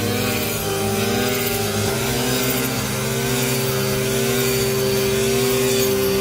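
Engine of a rice harvesting machine running steadily, a continuous mechanical drone whose pitch shifts a couple of times.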